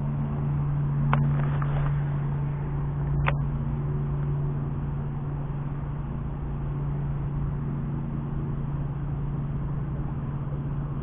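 A boat motor runs steadily with a low, even hum. Two short sharp clicks come about one and three seconds in.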